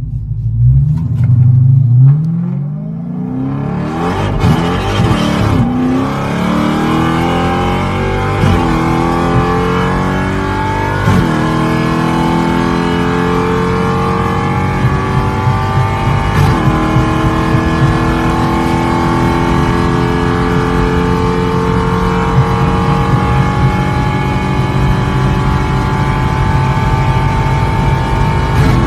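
Dodge Challenger Hellcat Redeye's supercharged 6.2-litre V8 at full throttle, accelerating hard through the gears. Engine pitch climbs and drops sharply at each upshift, about five times. Each gear pulls longer than the last, and the final gear climbs slowly toward top speed.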